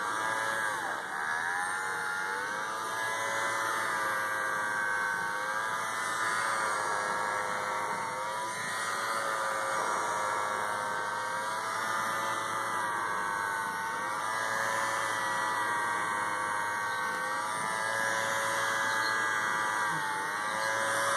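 Handheld cordless pet hair vacuum's small motor whining steadily while it is run over a cat's fur, its pitch dipping briefly several times.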